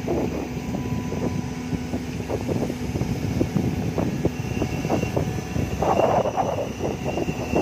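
Caterpillar crawler excavator's diesel engine running close by as the boom and bucket move, a rough, uneven mechanical noise with a steady low hum that drops out about halfway through.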